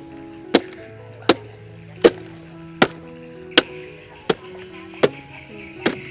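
Hatchet chopping into a palm trunk, about eight sharp strokes at an even pace of one every three-quarters of a second. Background music plays under the chopping.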